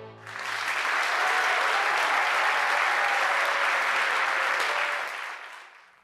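Audience applauding: a dense, steady clapping that starts just after the intro music ends and fades out near the end.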